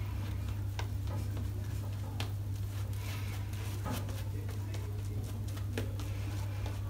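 Omega boar-bristle shaving brush working thick lather on the face: soft wet swishing with scattered crackling clicks from the lather, over a steady low hum.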